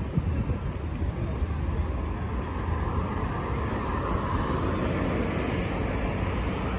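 Street traffic ambience: a steady rumble of road vehicles running past.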